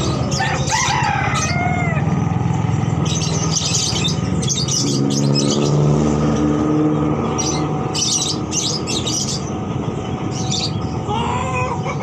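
Caged birds, lovebirds among them, chirping in repeated bursts over a steady low rumble. Near the start there is a brief gliding crow, like a rooster's.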